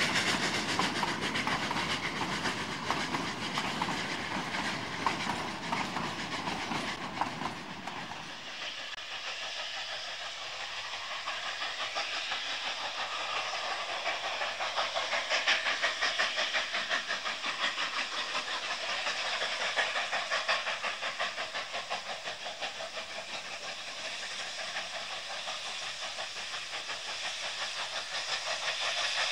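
Narrow-gauge passenger coaches rolling past, wheels clicking over the rail joints. About eight seconds in, this gives way to a double-headed pair of steam locomotives, a K-37 and a K-36 Mikado, working hard upgrade: quick exhaust beats over steam hiss.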